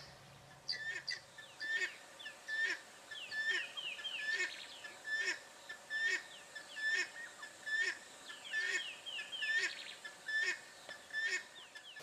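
Helmeted guineafowl calling: a long series of harsh, cackling calls repeating a little under once a second.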